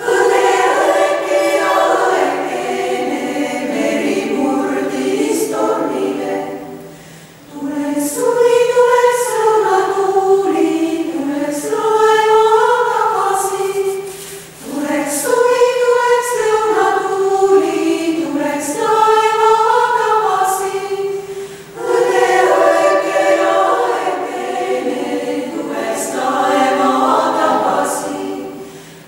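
Women's choir singing, in phrases broken by short breaths about every seven seconds.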